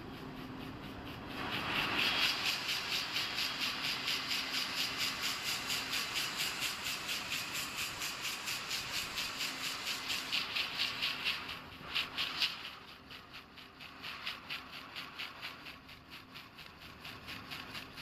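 Water-jet loom weaving plastic mesh fabric: a fast, even machine clatter with a hiss behind each beat. It grows louder about a second and a half in and drops back about twelve seconds in.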